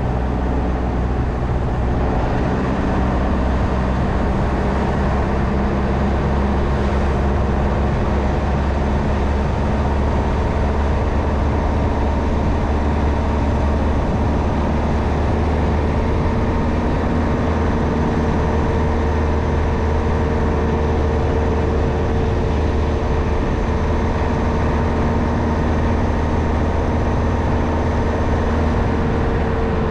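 Car engine running steadily under load on an uphill road, with tyre and road rumble. The engine hum strengthens a little through the middle.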